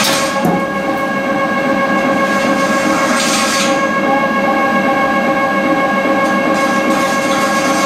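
Pipe severing and beveling machine cutting a groove into a metal pipe: a steady machine whine over the rough scrape of the cut, with a burst of hissing about two and a half seconds in that lasts about a second.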